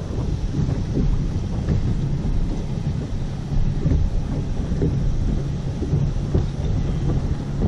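Wind buffeting the microphone on an open boat: a steady, gusting low rumble.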